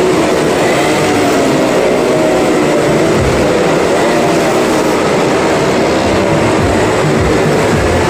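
Engines of several small cars and a motorcycle running at speed around the vertical wooden wall of a well-of-death drum: a loud, steady drone with several engine notes wavering over one another.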